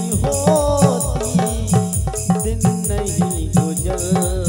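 Indian folk song music: a wavering melody line over a fast, steady hand-drum beat, with evenly repeating jingling percussion ticks on top.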